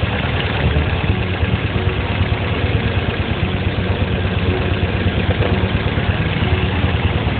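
Toyota EFI petrol engine idling steadily.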